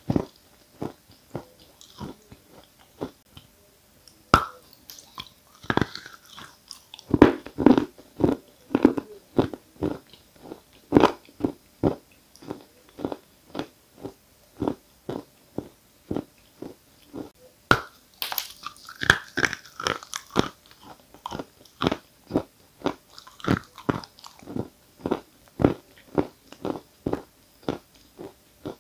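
Close-miked biting and chewing of a chunk of 'Giant' (Исполин) eating chalk. A few louder crunching bites stand out among steady crisp chewing crunches at about two a second.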